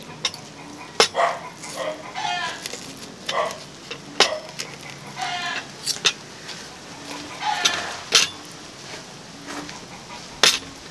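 Knife and fork clicking and scraping against a plate while cutting through the crisp skin of a fried pork leg, with several sharp clinks. Short animal calls repeat in the background.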